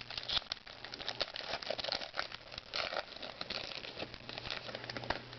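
Baseball trading cards being flipped through and handled, a quick irregular run of small clicks and paper-like rustles.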